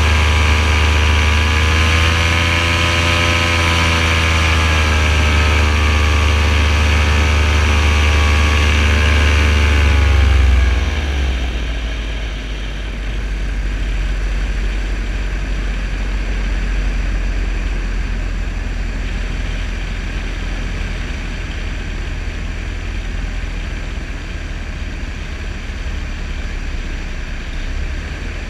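Paramotor engine and propeller running under power, the pitch wavering slightly. About ten seconds in it is throttled back and its note falls away, leaving wind rush and a low rumble as the paramotor glides down.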